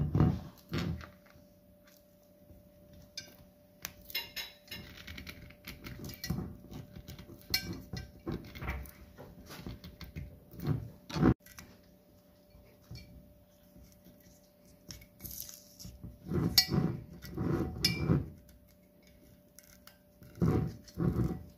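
Handling noise of a glass whisky bottle and its cardboard presentation box: a knock as the bottle comes out of the box, then irregular scrapes, rustles and small clicks as fingernails pick at the paper seal stamp and foil capsule on the cap.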